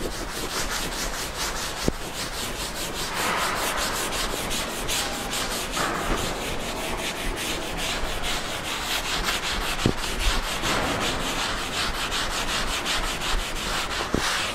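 Blackboard duster rubbing chalk off a blackboard in quick back-and-forth strokes, several a second.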